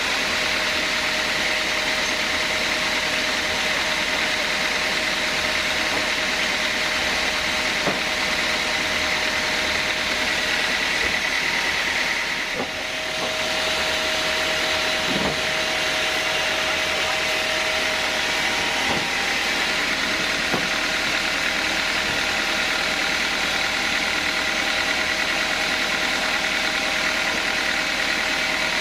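Sawmill band saw machinery running steadily, a continuous mechanical noise with a steady whine. There is a brief dip in level about halfway through and a few faint knocks.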